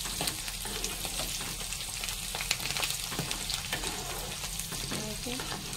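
Garlic, curry leaves, cumin, chana dal and mustard seeds frying in hot oil in a metal kadai: a steady sizzle with many small pops and crackles as the tempering cooks through. Metal tongs stir the pan.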